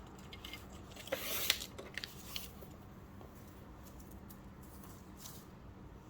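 Stiff, crinkled coffee-dyed paper being handled and folded: a brief rustle about a second in, followed by a few light clicks and taps.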